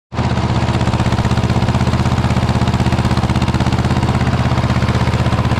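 Ursus C-330 tractor's two-cylinder air-cooled diesel engine running steadily under way, heard from the driver's seat, with an even, fast firing beat.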